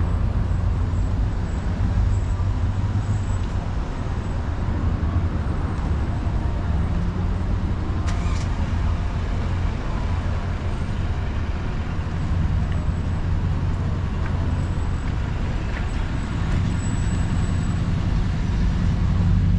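City street traffic: a steady low rumble of car and bus engines with tyre noise, and a short sharp click or knock about eight seconds in.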